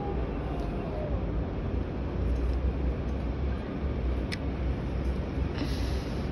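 Steady low rumble of construction work, with one sharp click about four seconds in.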